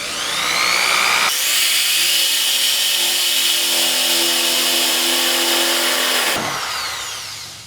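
Power drill with a large bit drilling a hole: the motor spins up with a rising whine, runs steadily under load for about five seconds, then winds down with a falling whine near the end.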